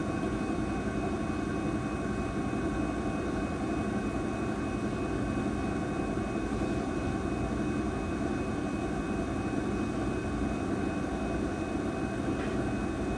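Johnford SL-500A CNC lathe spindle running steadily at 1,000 RPM during a spindle test: a steady whine with several fixed tones over a constant hum.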